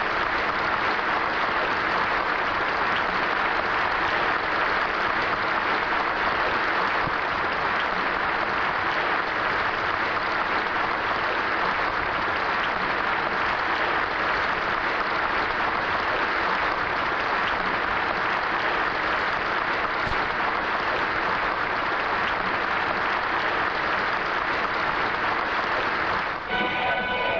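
Large audience applauding steadily and at length. About a second before the end, band music with brass begins.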